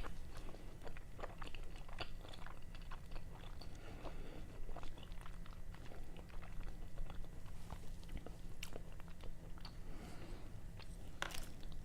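A person chewing raw fish sashimi close to the microphone: soft, wet mouth clicks and smacks, with a couple of sharper smacks near the end.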